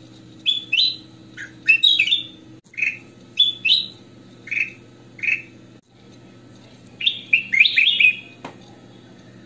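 A caged ruby-throated bulbul (kutilang emas) singing: bright, clear chirps and short whistled notes, delivered in quick clusters with brief pauses and a faster, denser run of notes near the end. A faint steady hum sits underneath, and a single sharp click sounds near the end.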